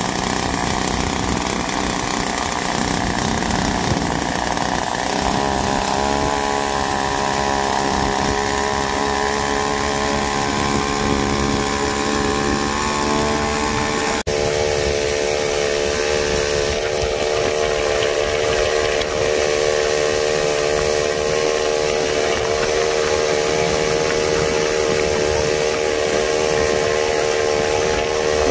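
Two-stroke chainsaw engine mounted on a bicycle, running under load as the bike is ridden. Its speed shifts about five seconds in and then holds steady, with a brief break about fourteen seconds in.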